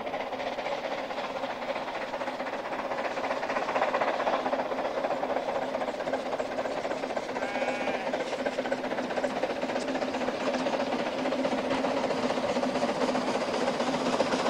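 Narrow-gauge steam train approaching, its running and exhaust noise growing steadily louder as it comes nearer. A short high squeal sounds about halfway through.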